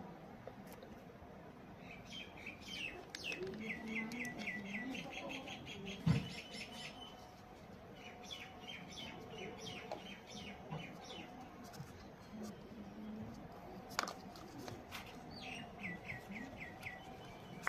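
Small birds chirping in quick runs of repeated notes, several bouts over the stretch. Two sharp knocks, one about six seconds in and a fainter one near fourteen seconds; the first is the loudest sound.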